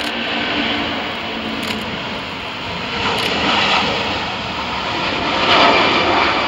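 Airbus A330 airliner's twin jet engines at takeoff thrust as it lifts off and climbs away: a loud, dense rushing noise that swells about three seconds in and is loudest about five and a half seconds in.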